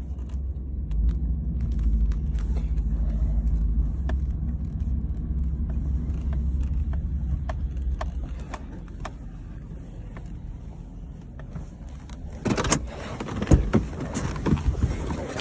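A vehicle's engine running with a steady low rumble, heard from inside the cab, easing a little past the middle. Near the end, a clatter of sharp knocks and rattles.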